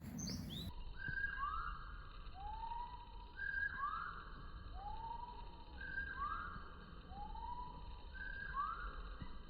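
A wild bird whistling a repeated phrase of three clear notes, each an arched note lower than the one before, sung four times about every two and a half seconds.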